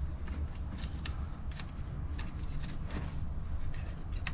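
Plastic clip clicks and rattling as a Raptor light is worked out of its snap-in clips on a TRD Pro grille: a string of short, irregular clicks over a low steady rumble.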